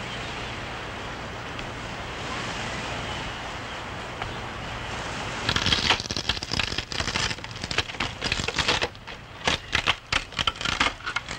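Steady rushing beach ambience of surf and wind. About five and a half seconds in, a dense run of crackling clicks starts and keeps on to the end.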